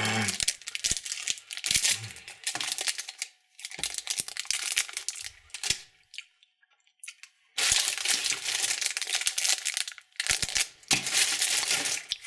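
Plastic candy wrappers crinkling and tearing as they are opened by hand, in spells with a pause of about a second and a half midway.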